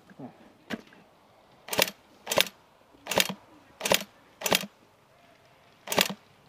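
Airsoft gun fired at close range, single shots one at a time: seven sharp cracks about half a second to a second and a half apart. The first is faint and the other six are loud.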